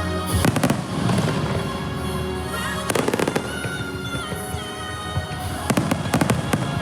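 Fireworks going off over the show's music: a burst of bangs about half a second in, another around three seconds in, and a rapid string of crackling bangs near the end.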